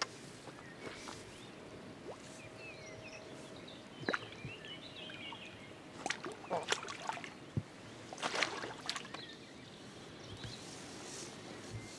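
Intermittent water splashes and knocks as a hooked carp is played in close to the bank and netted.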